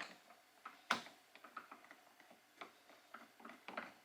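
Faint, irregular small clicks and taps of a screw and screwdriver working against the plastic and metal of a car door handle assembly while feeling for the screw hole, with one sharper click about a second in.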